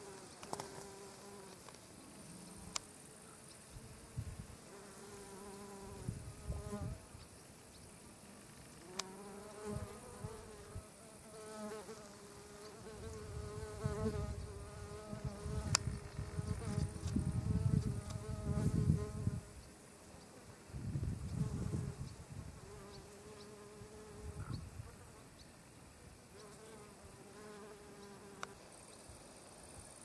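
Flying insects buzzing, the buzz coming and going in several passes as they fly near and away. A low rumble runs through the middle stretch, with a few sharp clicks.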